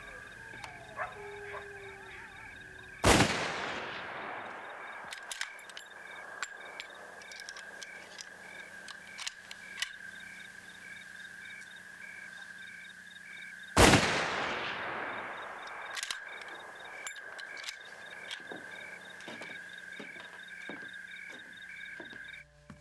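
Two rifle shots fired into the air, about ten seconds apart, each with a long echoing tail. A steady high pulsing tone runs beneath, with a few light clicks between the shots.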